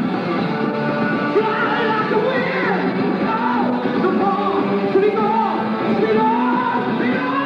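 Rock song playing, with a lead vocal over the band.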